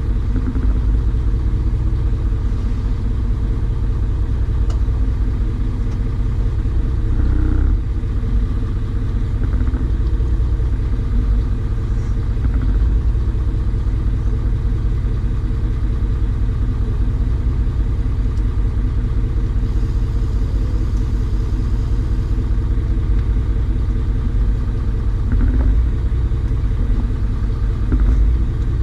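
An engine running steadily with a low, even rumble and no change in speed.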